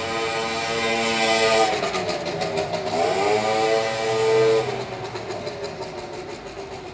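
A motor vehicle's engine running, its pitch dipping about two seconds in and rising again around three seconds, then fading away after about five seconds.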